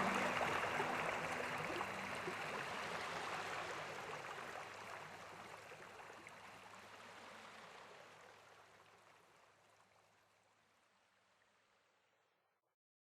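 Cascading waterfall, an even rush of water, fading out gradually to silence over about twelve seconds. A few faint held music notes die away in the first second or two.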